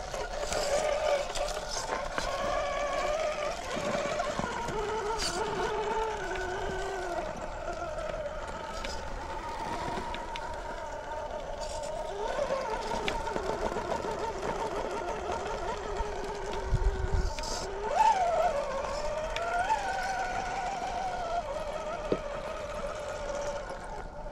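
Electric whine of a 1/10-scale Traxxas TRX4 rock crawler's Fusion SE 1800KV brushless motor and geartrain, its pitch rising and falling with the throttle as it crawls over rock, with quick rising revs a little after the middle. Scattered sharp clicks from the tires and chassis knocking on rock, and a short low rumble of wind on the microphone.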